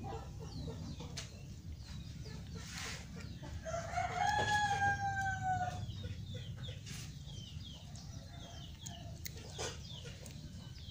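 A single long animal call about four seconds in, rising and then held while sliding slightly down in pitch, over scattered faint high chirps.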